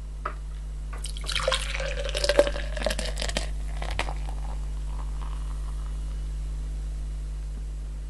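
Beer poured from a bottle into a tall glass: a splashing, glugging pour starting about a second in and lasting about two and a half seconds, then the foaming head fizzing faintly. A light click near the start and another about four seconds in.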